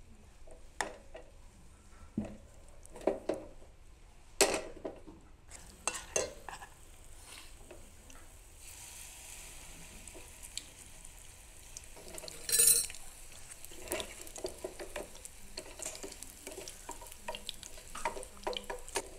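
Seafood scallion pancake batter frying in oil in a nonstick pan. For the first few seconds a spoon clinks and scrapes against the pan and bowl as the batter is scooped in. From about halfway a steady sizzle of frying sets in, with one short loud burst about two-thirds through.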